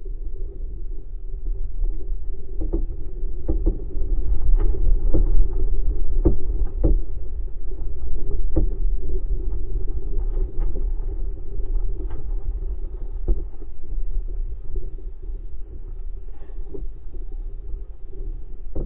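Wind buffeting the microphone of a camera lifted aloft on a tether: a steady low rumble with a hum running through it, broken by many sharp knocks and taps as the rig sways on its line.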